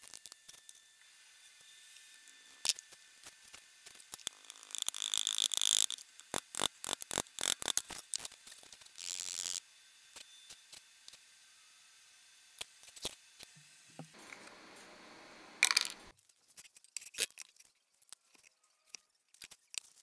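Clicks, taps and scrapes of hands and small tools working a Delft clay sand mould in a wooden flask on a steel workbench. There are short rushes of rubbing or scraping around five and nine seconds in, and a sharper knock near the end.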